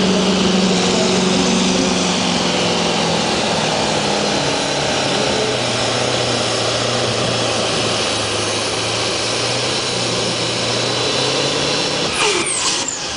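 Scania V8 diesel truck engine at full throttle under heavy load while pulling a truck-pulling sled. Its steady engine note drops in pitch a few seconds in and then holds. A short, sharp sound with falling pitch comes near the end.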